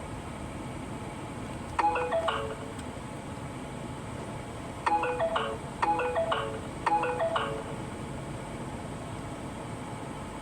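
An electronic marimba-like chime, a short falling run of notes like a phone ringtone or alert, plays once and then three times in a row about a second apart, over a steady low hum.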